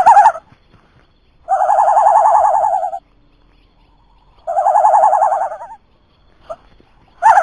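An animal's trilling call, given twice, each about a second and a half long with a fast, even warble, and short clipped calls at the start and near the end.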